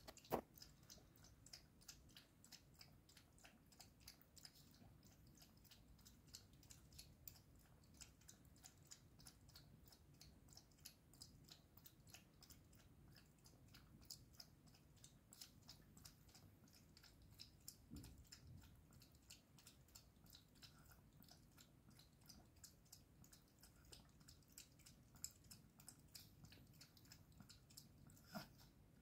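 A small spitz dog chewing food from a steel bowl: a faint, steady run of small crunches and clicks.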